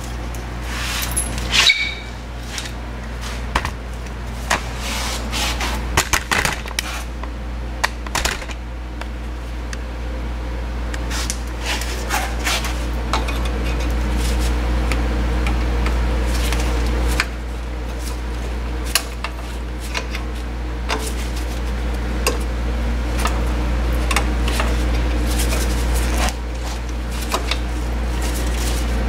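Light metallic clicks and clinks of drum-brake hardware and hand tools as the brake-shoe hold-down springs and pins are worked off, over a steady low hum.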